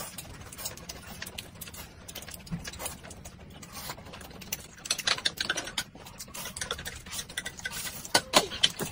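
Eating sounds: noodles slurped and chewed, with chopsticks clicking against the plates in short irregular ticks. The clicks and slurps come louder in a cluster about five seconds in and again near the end.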